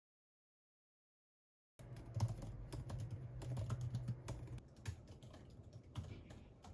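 Fast typing on a laptop keyboard, a quick irregular patter of key clicks that starts after about two seconds of silence, over a low hum at first.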